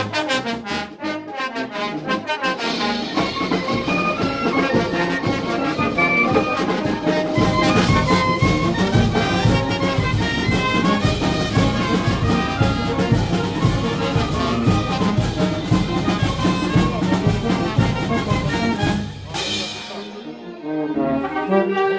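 A live brass band plays a tune: sousaphones, trumpets and horns over a steady beat of bass drum, snare and hand cymbals. A loud cymbal crash comes near the end, followed by a brief lull before the playing picks up again.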